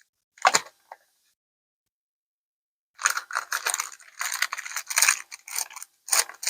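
Packaging handled by hand: one short rustle about half a second in, then a long stretch of crackly rustling and crinkling from about three seconds in, as the sunglasses are unwrapped from their packing.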